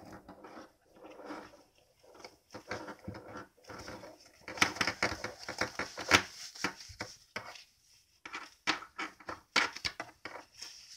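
A latex-coated fabric gardening glove with plastic claws being pulled onto a hand: irregular rubbing and rustling, with many short sharp clicks and scrapes that are busiest in the middle.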